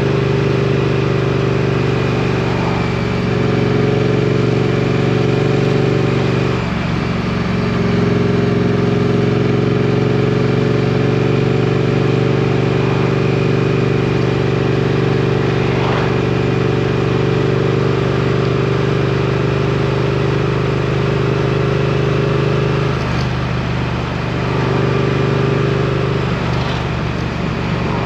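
A 2022 Triumph Street Twin's 900 cc parallel-twin engine running steadily under way. The engine note drops briefly about seven seconds in and again near the end.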